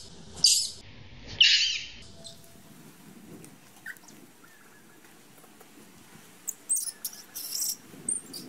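Macaque screaming: two loud, shrill, high-pitched screams in the first two seconds, then after a quieter stretch a quick string of shorter shrill squeals near the end.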